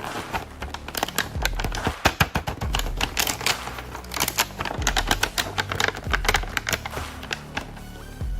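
Rapid, irregular clicking and clacking of hard plastic being handled, over background music with a steady low bass beat.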